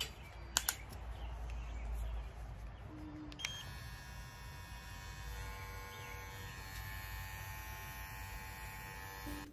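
Cordless electric dog hair clipper: a few plastic clicks as a guide comb is handled and fitted, then the clipper is switched on about three and a half seconds in and runs with a steady buzz.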